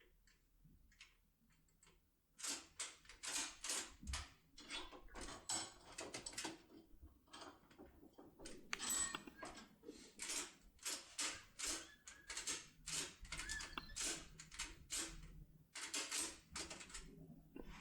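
Small metal clicks and rattles from a lock and lockpicking tools being handled, a quick irregular run of about two or three a second starting a couple of seconds in.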